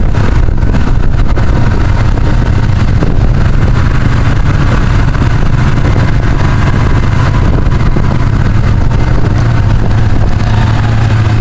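Snowmobile engine running at a steady cruising speed, a constant low drone with no revving.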